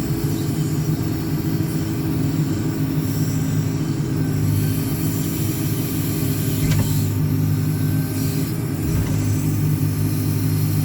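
JCB 4CX backhoe loader's diesel engine running steadily with an even drone, while the machine works its rear backhoe arm.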